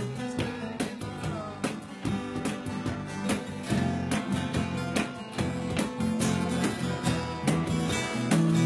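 Acoustic guitar and electric bass playing an instrumental passage of a pop-rock song, plucked guitar notes over a steady bass line.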